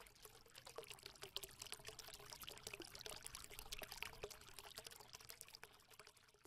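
Faint crackling trickle: many small, irregular clicks over a light hiss, building up just after the start and fading out near the end.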